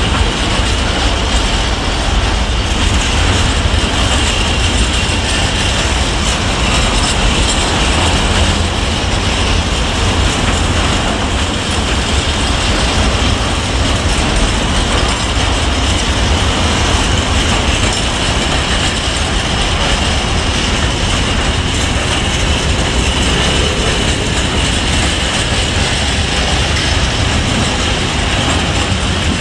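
Container flat wagons of a long freight train rolling steadily past on the nearby track: a continuous rolling noise of steel wheels on rail, with clickety-clack and rattling from the wagons.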